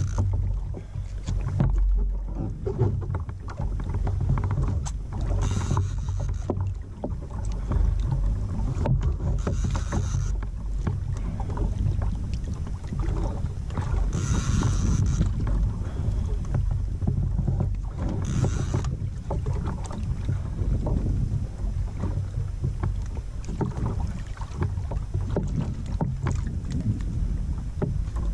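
Wind rumbling on the microphone and water lapping against a kayak's hull and outrigger floats on open ocean. A short hissing splash comes every four seconds or so until about two-thirds of the way through.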